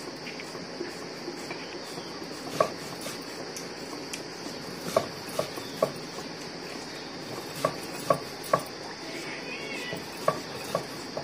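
Insects chirring steadily, with sharp hard knocks here and there, about nine in all.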